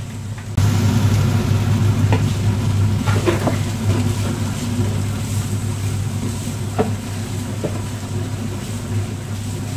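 Chopped chillies and leek sizzling in a hot frying pan as a wooden spatula stirs them, with a few scrapes and taps of the spatula against the pan, over a steady low hum. The sizzle jumps up sharply about half a second in.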